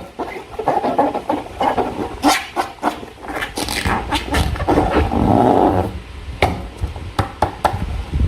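Hands working slime and a rubber balloon: irregular squishing, rubbing and sticky crackling sounds, with a quick run of sharp clicks and snaps near the end.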